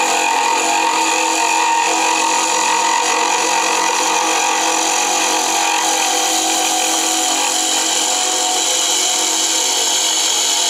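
Wood lathe spinning a pen blank while a hand-held turning tool cuts it: a steady cutting hiss over the even hum of the lathe's motor.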